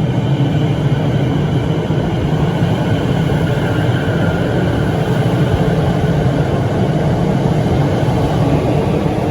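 Siemens Nexas electric suburban train running through the underground station, a loud steady rumble with a faint whine above it.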